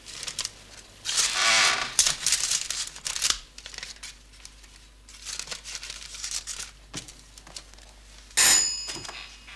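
Paper rustling and crinkling in bursts as an envelope and banknotes are handled. Near the end comes one sharp knock with a brief high ring.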